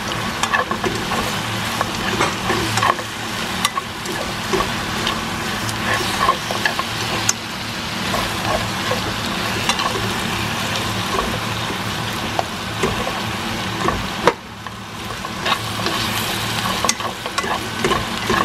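Pork pieces sizzling as they fry in a soy-sauce and maple-syrup glaze in a frying pan, with chopsticks clicking and scraping against the pan as the meat is stirred and turned. A sharp tap a little past the middle is followed by a brief drop in the sizzle.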